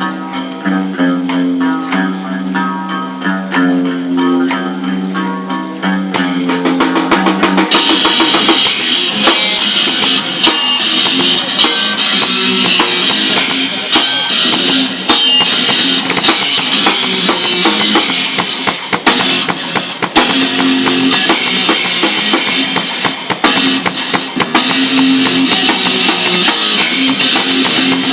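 Rock music: a guitar riff plays over a light backing, then about eight seconds in the drum kit with cymbals comes in fully and the band plays on louder.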